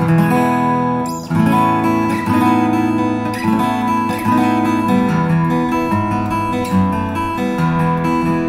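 Aria W-20D dreadnought acoustic guitar, Japanese-made in the 1980s, fingerpicked. It plays a run of chords and melody notes over moving bass notes, which ring on and overlap.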